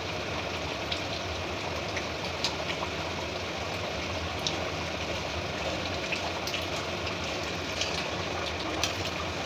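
Chicken and potato curry bubbling at a simmer in a pan: a steady hiss with scattered small sharp pops.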